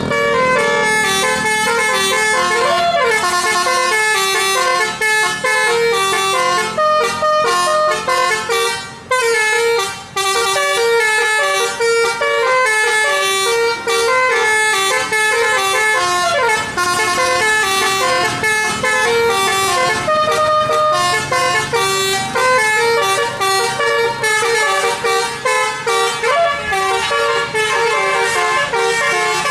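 A bus's Basuri-type telolet musical air horn playing a continuous melody of stepped, held notes, breaking off briefly twice near the middle.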